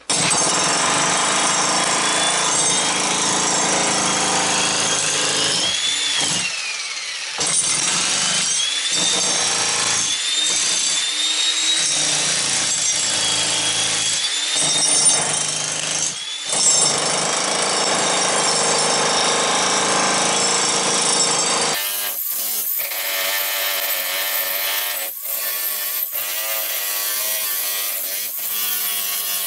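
Jackhammer bought from Harbor Freight chiselling through a thin concrete basement slab, running loudly and steadily with a few brief pauses. About three-quarters of the way through, the sound turns thinner, with the low end gone.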